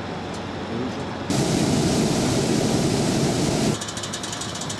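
Hot air balloon's propane burner firing once, a loud rushing blast that starts suddenly about a second in and cuts off sharply after about two and a half seconds.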